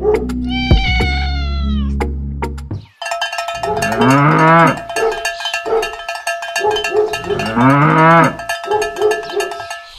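Farm-animal calls. A high, slightly falling call sounds about half a second in. After a change about three seconds in come two low cow moos about three and a half seconds apart, over a steady ringing tone and clatter.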